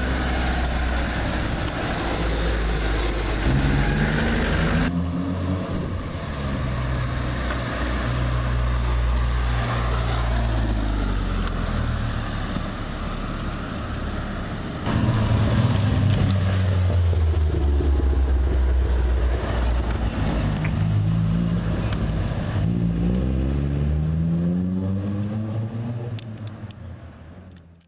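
Classic car engines running and accelerating away one after another, with the pitch rising through the gears several times. The first is a 1982 Citroën 2CV6 with its small air-cooled flat-twin engine. The sound fades out near the end.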